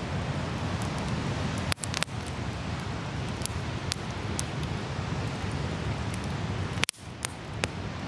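Driftwood campfire crackling, with sharp pops scattered through it, over a steady low rumble of ocean surf. The sound briefly drops out twice, just under two seconds in and about seven seconds in.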